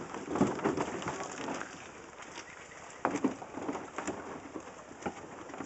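Irregular splashing and knocking at a river's edge as a plastic kayak is boarded, with a louder knock about three seconds in.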